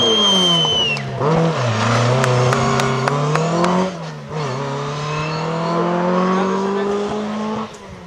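Ford Escort Mk2 rally car's tyres squealing as it slides through a corner, then its engine revving hard through the gears as it accelerates away, with upshifts about one and four seconds in. The sound cuts off abruptly near the end.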